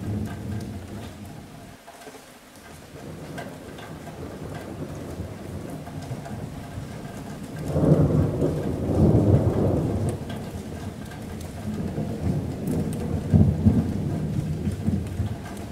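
Rolling thunder rumbling over steady rain on a metal roof. The rumble dies down about two seconds in, swells to its loudest about eight seconds in, and peaks again a few seconds before the end.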